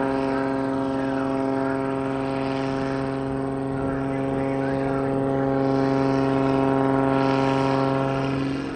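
Aerobatic biplane's piston engine and propeller droning at a steady pitch overhead, a little louder partway through. Near the end the tone shifts and the sound drops in level.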